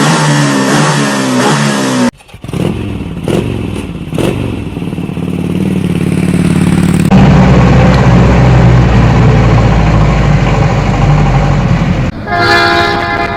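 A run of different vehicle sound effects cut one after another: engine sounds that change abruptly about two and seven seconds in, with a loud low steady engine in the middle, then a horn with several tones sounding near the end.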